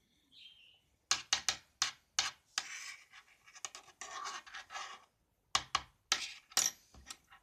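Teaspoon scraping and knocking against a bowl as it stirs thick, sticky slime made of liquid soap and salt, in irregular short strokes with a few brief pauses.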